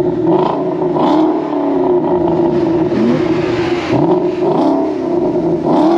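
Turbocharged Nissan 350Z's V6 engine running, with short revs rising in pitch about three and four seconds in.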